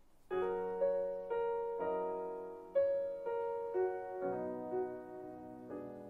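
Slow solo piano intro played back through B&W 803S loudspeakers and picked up by a microphone in the room: notes and chords struck about every half second, each ringing and decaying, starting about a third of a second in and softening towards the end.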